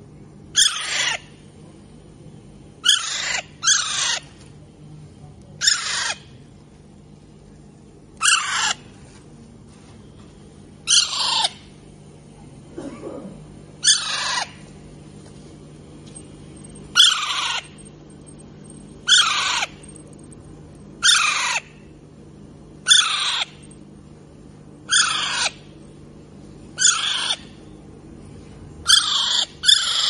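Young Alexandrine parakeets calling with short, harsh screeches, about one every two seconds, each falling in pitch; two come close together near the end.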